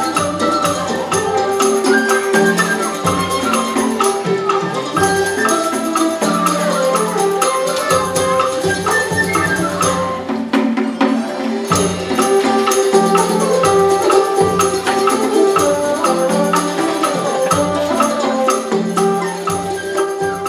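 Instrumental music: a busy melody of pitched notes over steady rattling, jingling percussion, with the low end dropping out briefly about ten seconds in.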